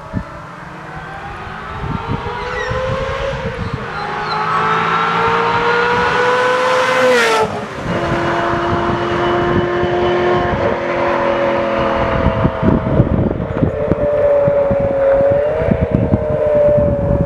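Ferrari F355 F1's 3.5-litre V8 accelerating hard toward and past, its pitch climbing through the revs and stepping down at each gear change. As it passes, about seven seconds in, the sound peaks and the pitch drops sharply, then it pulls away with another gear change and a steady note that fades into the distance.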